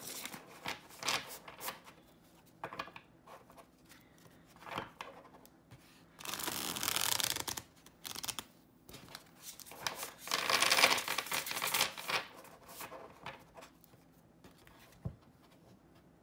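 A tarot deck being shuffled by hand: cards sliding and flicking against one another in short bursts, with two longer rushes of card noise about six and ten seconds in, and a soft tap near the end.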